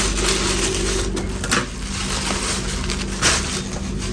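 Parcel wrapping being torn and pulled open by hand: repeated rustling and ripping of the packaging in uneven bursts, over a steady low hum.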